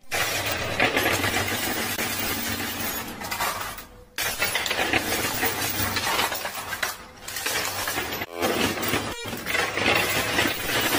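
Continuous dense clatter of plastic poker chips and coins on a coin pusher machine, many small clicks and clinks overlapping, cutting out briefly a few times.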